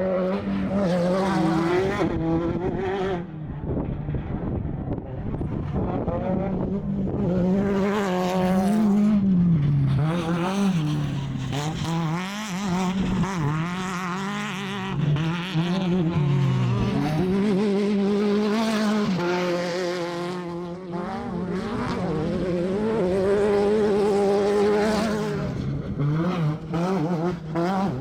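Class 10 off-road desert race car's engine running hard at high revs, the revs dipping and climbing back several times, over a steady rushing hiss.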